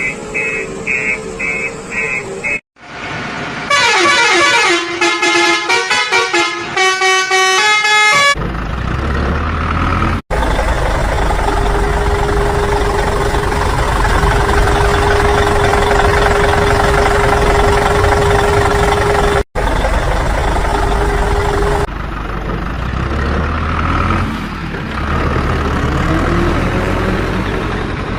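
A string of vehicle sound effects with hard cuts between them. First comes rapid reversing beeps, then a quick tune of horn notes that steps up and down. For most of the rest there is a rumbling engine with a steady hum over it.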